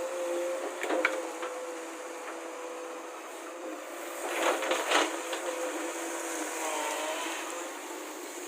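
Machinery running with a steady hum, with sharp knocks and clatters about a second in and again around four to five seconds in.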